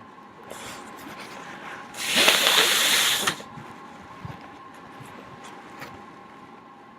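A single forceful nose blow, a hissing rush of air through a congested nose lasting just over a second, about two seconds in.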